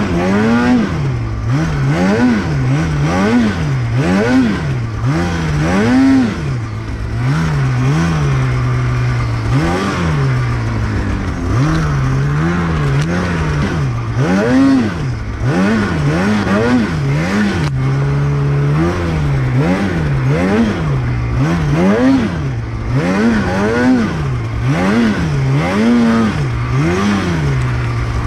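Polaris Matryx snowmobile's two-stroke engine, revving up and dropping back over and over, about once a second, as the throttle is worked on and off through tight trees.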